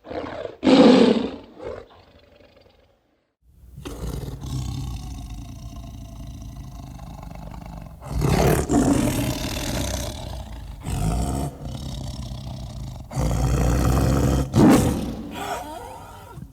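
Tiger roar sound effect: a short roar near the start, then after a brief pause a long low growl, followed by several loud roars in the second half.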